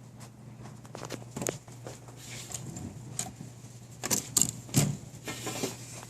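A 1933 Smith Corona flat-top manual typewriter being worked by hand. Scattered sharp mechanical clacks build to three loud ones about four seconds in, followed by a short rasping slide of the mechanism.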